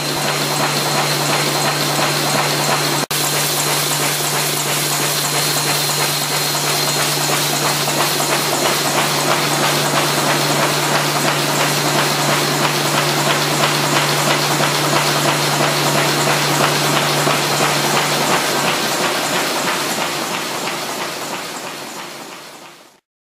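MBO K8RS combination folding machine running at production speed, about 175 m/min: a loud, steady mechanical rush of rollers, paper and air. A steady low hum runs under it and stops about three quarters of the way through, and the whole sound fades away near the end.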